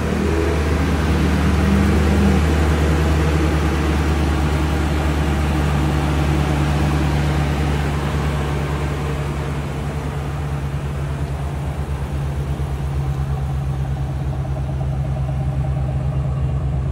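Chevrolet 2500 pickup truck engine idling steadily.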